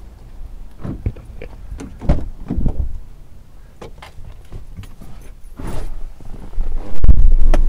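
Scattered knocks and thumps, with a cluster a couple of seconds in and a loud, heavy thump about seven seconds in.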